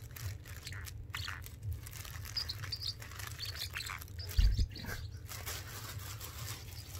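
Crackling rustle of a black plastic garbage bag as a small blue parrotlet clambers on it, with a few short, high chirps from the bird in the middle. A loud dull thump about four and a half seconds in.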